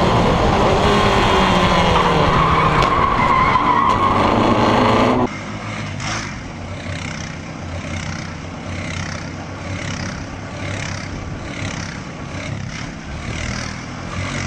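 Open-wheel single-seater race car's engine at high revs, heard from onboard, loud, with its pitch climbing. After about five seconds it cuts off, and a quieter quad bike engine runs steadily for the rest.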